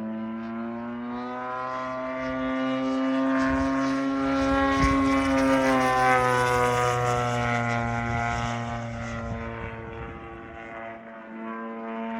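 Engine and propeller of a propeller-driven aerobatic airplane passing overhead. The engine note swells to its loudest in the middle, falls in pitch as the plane goes by, then fades.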